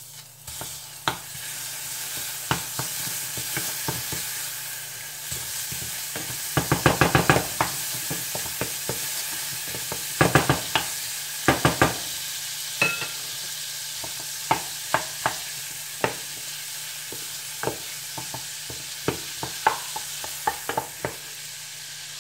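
Butter and chopped garlic sizzling in a stainless steel saucepan while a wooden spoon stirs and knocks against the pan. The sizzle is steady, and the spoon's knocks come singly, with two quick runs of rapid clicks near the middle.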